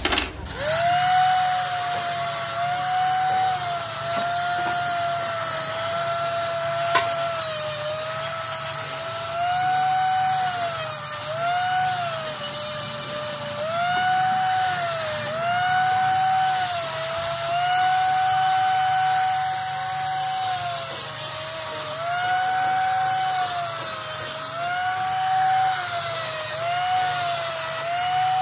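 Die grinder with a mounted abrasive stone, starting up and whining at high speed while it grinds the steel piston of a hydraulic breaker turning in a lathe. Its pitch sags every second or two as it is pressed onto the metal and rises again as the pressure eases.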